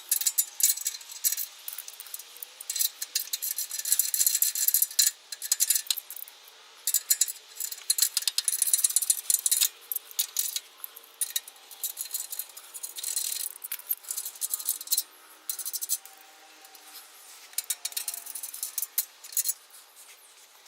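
Socket ratchet clicking in quick runs with short pauses, with light metal clinks, as the exhaust header-to-downpipe bolts are loosened and backed out.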